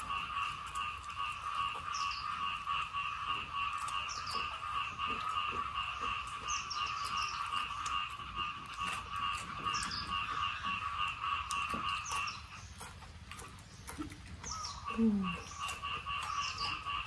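A steady pulsing animal call, about four pulses a second, from an insect or frog in the yard. It stops about twelve seconds in and starts again near the end. Short high bird chirps sound over it every couple of seconds, and a short falling whine comes about fifteen seconds in.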